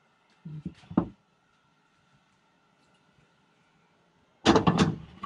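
Iron wok knocking and clattering against the gas stove's burner grate as it is shifted: two short knocks about a second in, then a louder clatter of several knocks near the end.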